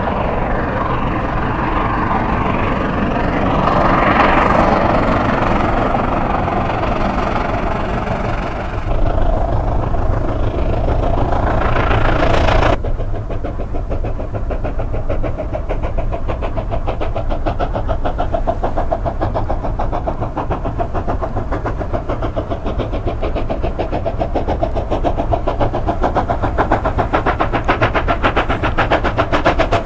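Coal-fired steam locomotive working hard, its exhaust beating in a rapid, even rhythm over a heavy rumble; it is throwing sparks from the chimney. About 13 seconds in the sound changes abruptly and becomes duller.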